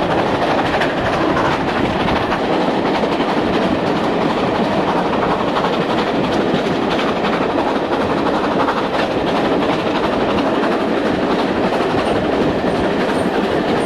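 Steam-hauled passenger train running at speed, heard from one of its own carriages: a steady, loud rush of wheel, rail and wind noise with a light clatter of wheels over the track.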